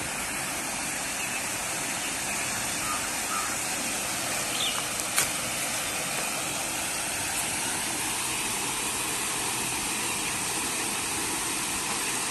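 Steady rush of shallow water pouring over a dam's stepped concrete spillway, with a single sharp click about five seconds in.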